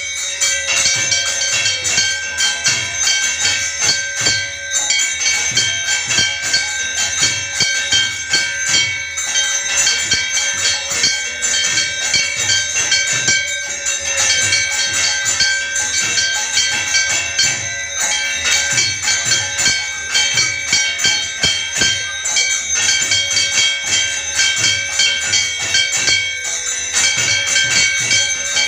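Temple bells and cymbals ringing and clashing continuously in a steady rhythm for the evening arati, with a low thump on the beat.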